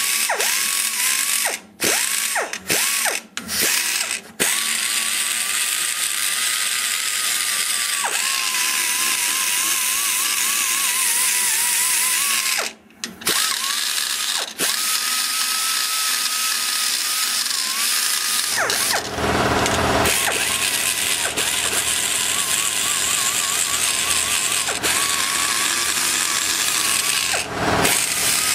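Die grinder whining at high speed as a carbide burr cuts and blends the aluminum around the exhaust valve guide in a KMJ 345cc big-block Chevy cylinder head. The whine wavers with the load and stops and starts several times in the first few seconds and once about 13 seconds in. A heavier, deeper grinding comes in about two-thirds of the way through.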